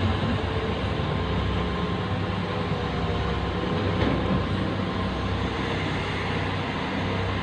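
Large excavator's diesel engine running steadily under load, a low, even hum with a wash of mechanical noise.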